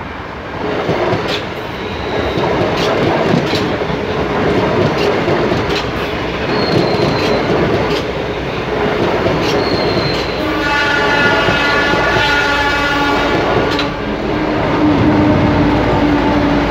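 Trains passing close on the tracks, a CSR Mitsubishi electric multiple unit and a container freight train: wheels clacking over rail joints with two brief high squeals. About ten seconds in, a train horn sounds for about three seconds, followed by a low steady hum as the container wagons roll by.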